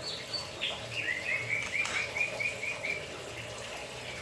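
White-rumped shama singing: a couple of high notes, then a run of about nine quick repeated notes lasting about two seconds.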